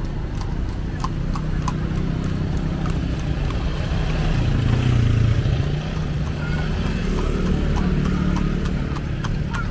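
Street traffic: motor vehicle engines running past in a low rumble that swells about halfway through, with faint voices and a string of regular clicks.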